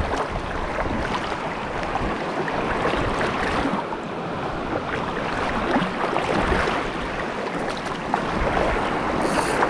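Steady rush of waves and wind, with a few faint clicks.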